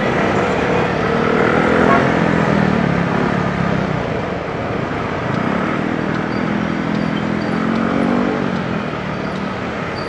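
Motorcycle engine running under a steady rush of wind and road noise as it rides through city traffic. The engine note rises and falls, with one swell near the start and a second from about the middle to near the end.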